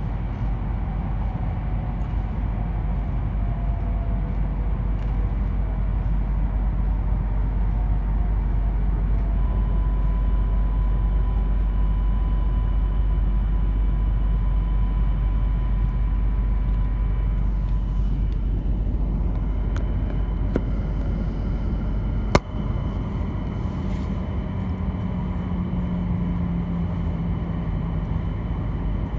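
Cabin noise of an E2 series Shinkansen running at speed: a steady low rumble with faint whines, and one sharp knock about 22 seconds in.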